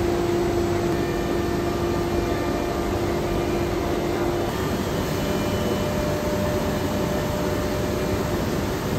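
Bent-plywood forming press running as it closes on a curved loudspeaker cabinet: a steady loud machine hum and hiss with a held whine that shifts to a higher pitch about halfway through.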